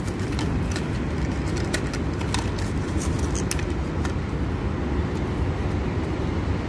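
Light clicks and rattles of spark plugs and their cardboard boxes being handled, over a steady low rumble of background noise. The clicks fall mostly in the first few seconds.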